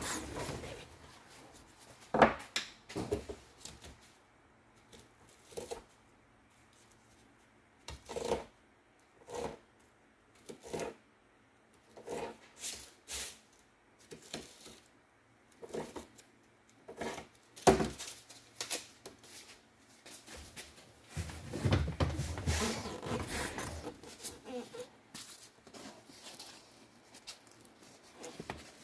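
Handling of a cardboard-and-tape mock-up: scattered taps, knocks and rustles, with a few sharp knocks and a longer stretch of rustling and scraping about three-quarters of the way in.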